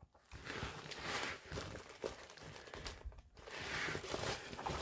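Plastic packaging crinkling and rustling as items are handled and unpacked, in irregular bursts, with a sharp click about three seconds in.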